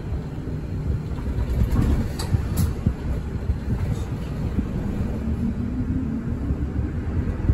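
Cabin noise of a route bus on the move: a steady low engine and road rumble, with a few brief light rattles about two seconds in.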